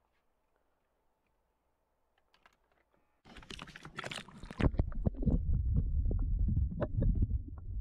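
Near silence, then about three seconds in, water splashing and sloshing against a waterproof action camera held at the lake surface while a hand lowers a crappie into the water. After that the camera is under water: a muffled low rumble with scattered clicks.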